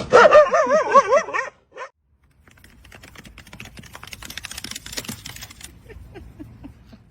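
A dog vocalizing a loud, wavering, howl-like whine for about a second and a half, as if answering back. After a short break comes a quick run of light clicks.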